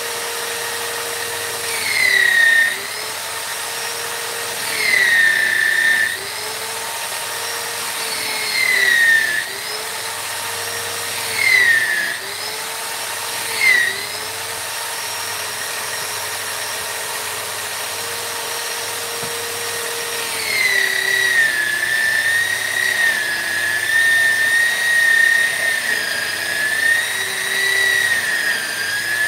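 High-speed electric rotary carving tool running with a steady whine. Its pitch drops and a louder, higher whine rises five times in short bouts as the bit is pressed into the wood. From about two-thirds of the way through it cuts continuously, its pitch wavering under load.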